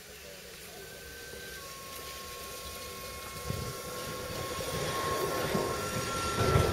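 Tatra tram rounding a curve, its wheels giving a thin, steady squeal on the rails. Under the squeal a low running rumble grows steadily louder as the car passes close by.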